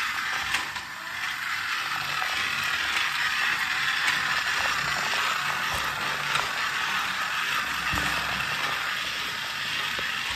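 Shark-shaped battery-powered toy car driving across a tiled floor, its small motor and plastic gears whirring steadily with a scatter of clicks.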